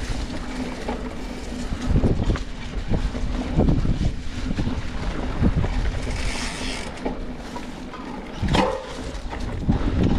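Wind rushing over the microphone of a mountain bike on a dirt trail, over the rumble of knobby tyres and the frame's rattle, with several harder jolts.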